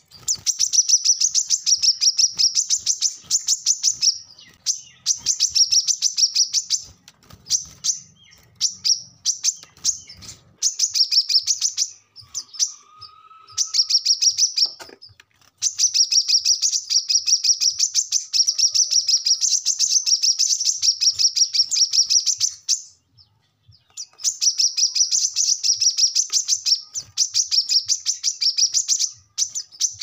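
Male brown-throated sunbird singing a lively chattering song: long runs of rapid, high, evenly repeated chirps, broken by several short pauses.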